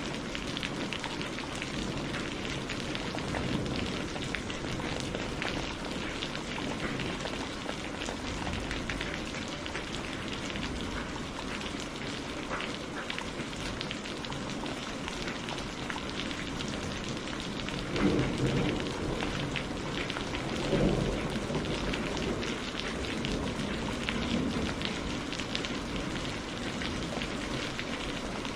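Steady rain falling and pattering on surfaces, with two low rolls of thunder about 18 and 21 seconds in.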